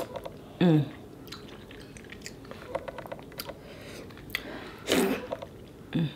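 Close-miked chewing of soft fufu dipped in egusi soup, with many small wet clicks and smacks of the mouth. A few short hums break in, one just after the start, one about five seconds in and one near the end.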